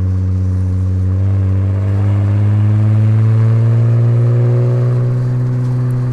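Bowler Challenge P300 Land Rover Defender's 2.0-litre four-cylinder turbo petrol engine, through a QuickSilver sport exhaust, pulling under steady acceleration. Its note rises slowly in pitch and then holds.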